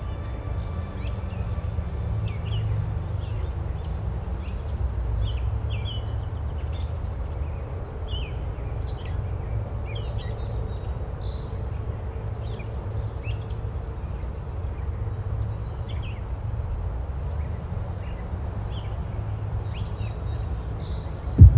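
Small birds chirping repeatedly over a steady low rumble, with a sudden loud low boom at the very end.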